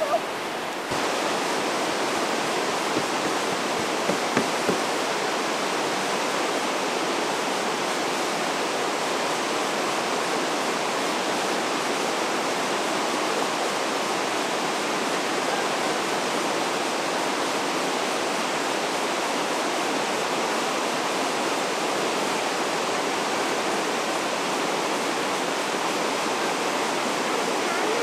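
Whitewater rapids of the Sacandaga River rushing steadily, an even wash of moving water that gets louder about a second in, with a couple of brief knocks about four seconds in.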